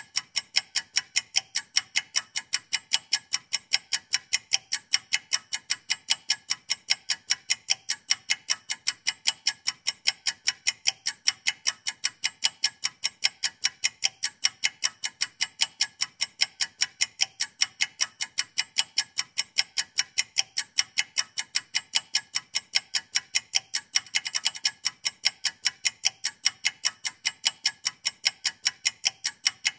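Steady, even clock-like ticking, about four ticks a second, sharp and high with no engine or road rumble under it; a brief swish rises over it about 24 seconds in.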